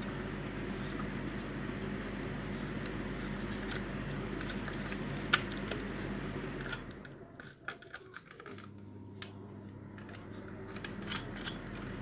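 Light clicks and taps of a plastic hand-mixer housing being handled, with one sharp click about five seconds in, over a steady low hum that fades out for a second or two past the middle and then returns.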